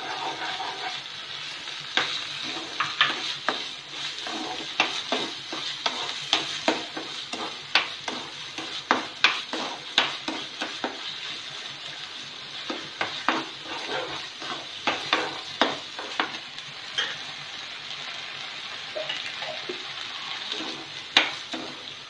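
A steel spoon scraping and tapping against a nonstick pan, many quick irregular strokes, as a thick milk-and-sugar mixture is stirred while it reduces into palkova. Under the strokes the mixture sizzles steadily as it cooks.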